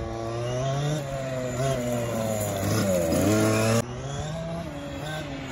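Two-stroke petrol engine of a 1/5 scale FG Sportsline Mercedes CLK AMG RC touring car, revving up and down as it is driven, its pitch rising and falling. It is loudest a little past halfway, then drops off suddenly.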